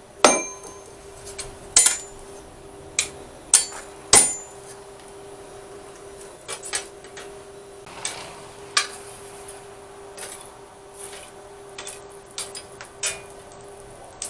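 Hand hammer striking steel on an anvil while forging a blade: a few heavy blows with a short metallic ring in the first four seconds, then lighter, irregular taps. A steady hum runs underneath.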